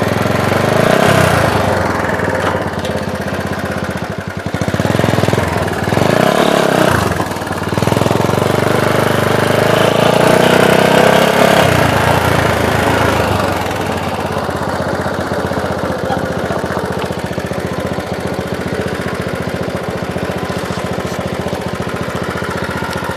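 Small dirt bike's engine running under the rider, revving up and easing off in several swells as it rolls over gravel, then settling to a steady idle for roughly the last ten seconds.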